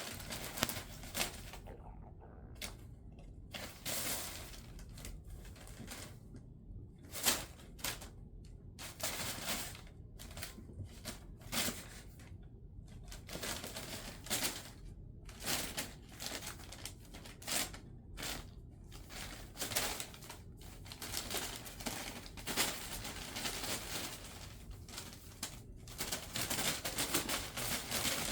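Amazon packaging rustling and crinkling in irregular bursts of scratches and taps as kittens paw, pounce and scramble on it.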